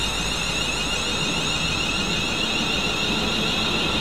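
Class 350 Desiro electric multiple unit running past the platform, a steady high-pitched electric whine over a low rumble from the train.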